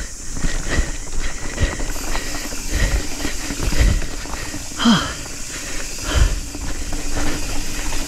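Nukeproof Scout 275 hardtail mountain bike ridden fast downhill on a loose dirt trail: a steady rush of wind and tyre noise, with the frame and chain rattling and knocking over rough ground. There is a short grunt from the rider about five seconds in.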